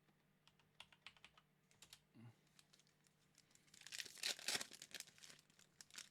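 Scattered light clicks, then about four seconds in a louder crinkling rustle lasting a second or two, from trading-card packs and cards being handled.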